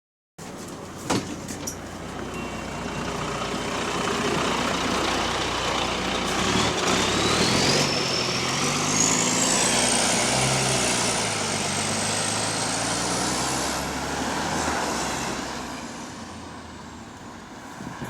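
A bus's diesel engine pulling away and accelerating, its note rising, with a high whine that climbs in pitch and then holds. The whine and the engine fade as the bus eases off near the end. The bus has an exhaust leak.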